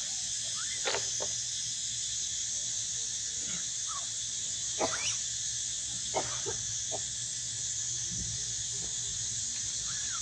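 Baby macaques giving short, high squeaks several times, over a steady high insect drone.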